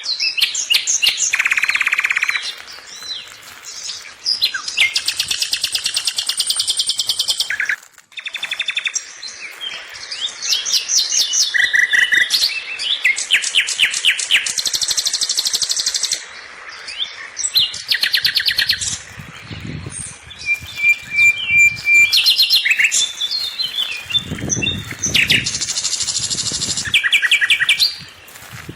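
Several small songbirds chirping and singing at once, with fast trills and quick runs of repeated high notes overlapping throughout. Low rumbles come in twice in the second half.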